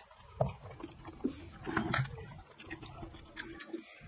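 Momo dumplings being eaten close to the microphone: irregular wet chewing, sips and mouth sounds, with light clicks of chopsticks and steel cups.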